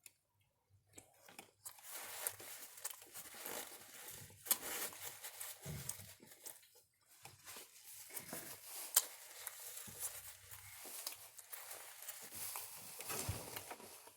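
Food packaging being handled and crumpled: irregular paper or plastic crinkling with sharp little crackles, starting a couple of seconds in.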